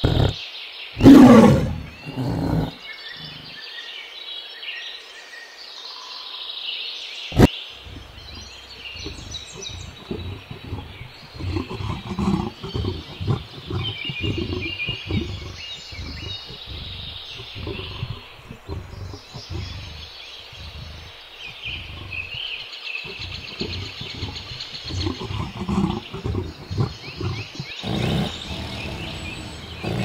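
Tiger growls over chirping birds: one loud growl about a second in, then from about eight seconds a long run of low, uneven rumbling growls, with a single sharp click in between.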